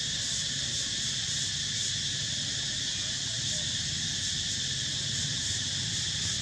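Steady shrill chorus of insects buzzing, with a faint regular pulsing and no break.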